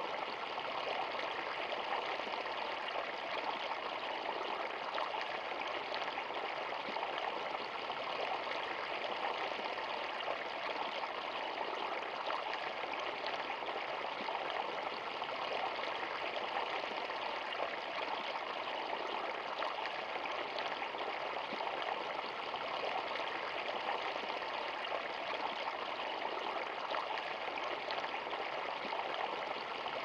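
Small woodland stream pouring over a low step between stones, a steady, even rush of running water.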